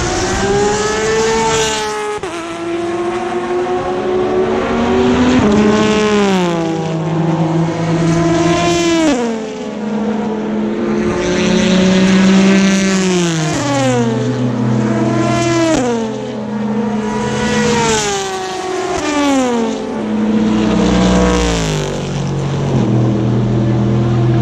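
Race cars passing at speed one after another, each engine note dropping in pitch as it goes by, with one car's note overlapping the next throughout.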